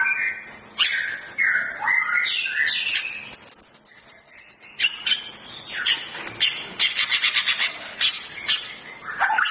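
White-rumped shama (murai batu Medan) in full song: a loud, varied run of whistled phrases, with a high thin note held for about a second and a half near the middle, followed by a fast run of repeated notes.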